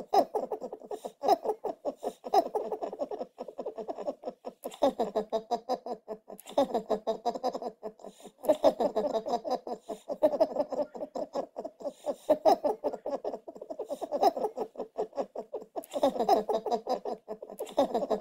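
Domestic cat purring close to the microphone: a fast, rough rattle that swells and eases every second or two with its breathing.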